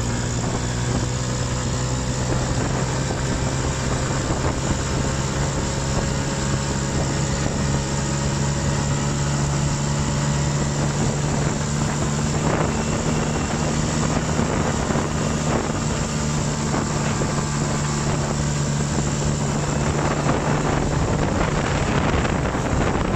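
Off-road buggy's engine running at a steady pitch while the buggy drives along; the engine note changes about twenty seconds in.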